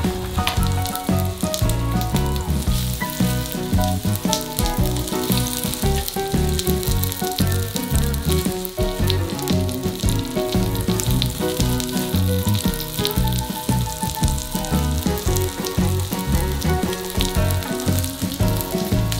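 Battered dureup (Korean angelica tree shoots) pan-frying in hot oil in a nonstick frying pan: a steady sizzle with many small crackling pops.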